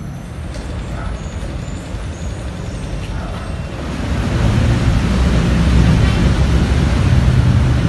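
Road traffic noise: a heavy vehicle's low engine rumble that swells louder about four seconds in.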